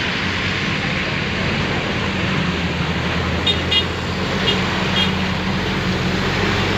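Steady motor-vehicle engine and road noise, with a few short high-pitched pips in the middle.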